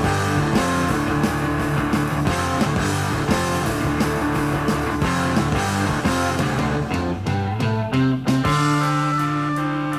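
Background rock music led by guitar; about three-quarters of the way through it settles into a long held chord.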